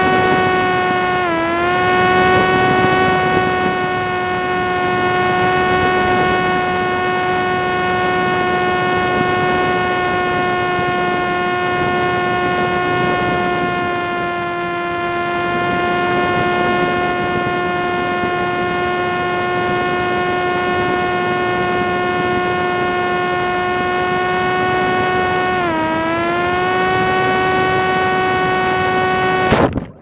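Parrot Disco drone's rear electric motor and propeller whining steadily over wind noise, dipping briefly in pitch twice. Near the end the whine cuts off abruptly with an impact as the drone crashes into the ground.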